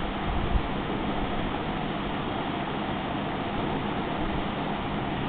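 Steady background hiss with a low hum, and a couple of soft low bumps about half a second in.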